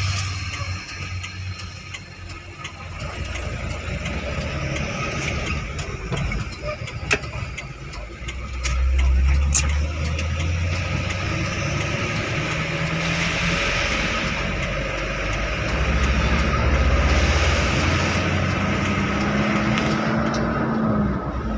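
Truck engine running on the move, heard from inside the cab with road noise and scattered rattles. Its pitch rises over the last few seconds as it speeds up.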